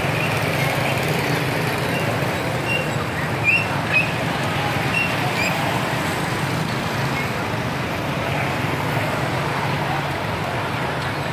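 Street traffic din from many motorbikes running along a crowded road, a steady low engine hum under an even noise. A couple of short high-pitched chirps stand out about three and a half and four seconds in.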